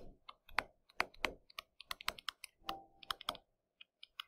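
Stylus tapping and clicking on a tablet screen while words are handwritten: light, quick, irregular clicks, several a second, growing sparser near the end.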